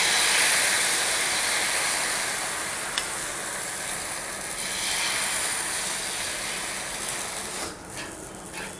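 Rice-flour amboli batter sizzling on a hot nonstick pan as it is ladled on and spread: a dense hiss, loudest at first, slowly dying down and dropping off near the end.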